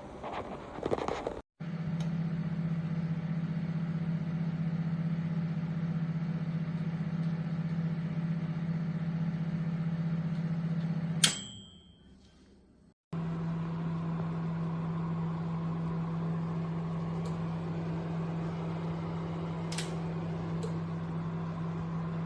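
Khind MW2001 microwave oven running with a steady low hum. About halfway through it stops with a sharp ding that rings briefly and fades, and a second or so later the hum starts again.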